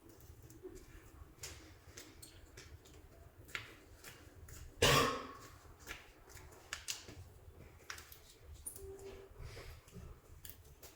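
Hands working soft modelling clay, making small irregular sticky clicks and taps, with one louder squish or slap about five seconds in.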